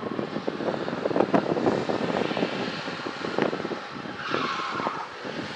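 Diesel pickup truck doing a burnout: the engine working hard while the rear tyres spin on the pavement, with a clear tyre squeal a little over four seconds in.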